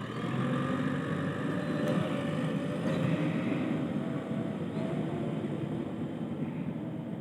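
JCB 3DX backhoe loader's diesel engine running steadily under work, with a thin wavering whine above the engine noise.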